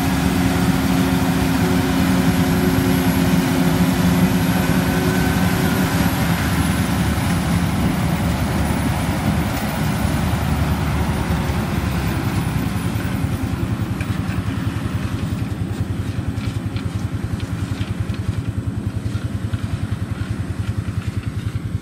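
Farm machinery engine running steadily. Its even hum gives way about halfway through to a lower, rapid pulsing.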